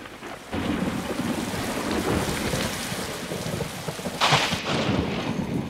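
Heavy rain pouring down with thunder rumbling low underneath, a storm sound effect, with a louder surge about four seconds in.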